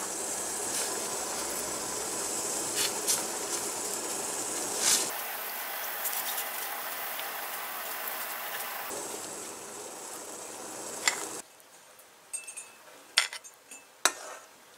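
A steady hiss with scattered taps and clicks that cuts off abruptly about eleven seconds in, followed by light clinks of dishes and cutlery.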